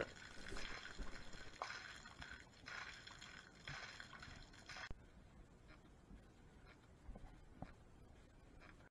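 Faint splashing of bilge water (standing vinegar) jetting from a sailboat's hull outlet onto gravel as the bilge is pumped out. It drops off about five seconds in, leaving a quieter stretch with a few soft knocks near the end.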